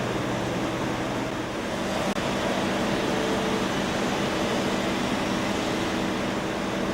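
Machine tool running steadily during valve body machining: a constant mechanical hum with several steady tones over an even hiss. A low hum drops out about a second and a half in.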